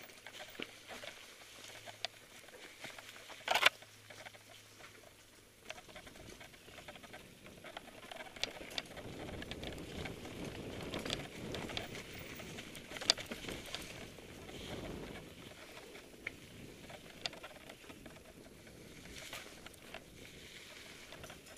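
Mountain bike ridden over a rocky trail deep in dry leaves: tyres crackling through the leaves, with rattles and sharp knocks as the bike hits rocks. The loudest knock comes about three and a half seconds in, and another about thirteen seconds in.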